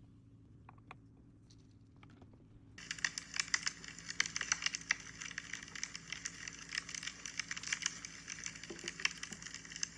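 Crackling and popping like a wood fire burning, dense and irregular, starting abruptly about three seconds in after a few faint clicks.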